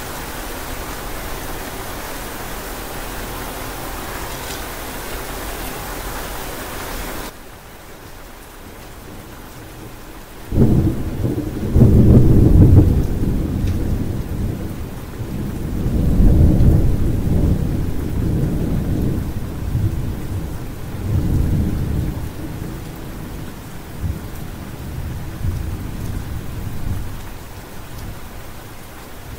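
Steady rain hiss that drops abruptly to a softer rain about seven seconds in. About ten seconds in comes a sudden loud rolling thunder peal, which swells again several times and slowly dies away over the rain.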